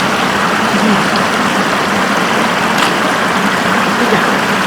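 Steady, loud rush of flowing floodwater.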